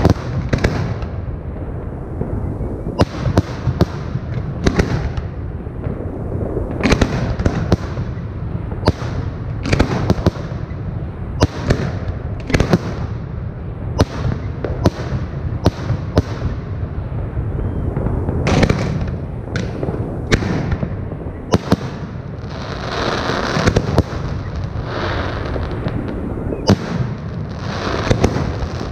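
Fireworks show: aerial shells bursting in quick succession, sharp bangs about every second over a continuous low rumble.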